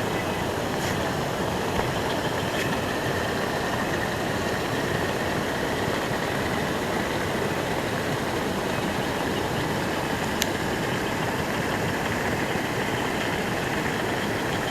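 Heavy rain falling steadily, a dense even hiss, with a few sharp ticks of drops striking, the clearest about ten seconds in.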